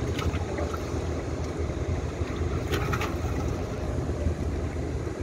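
A small boat's engine rumbles steadily, with wind and water noise on the microphone.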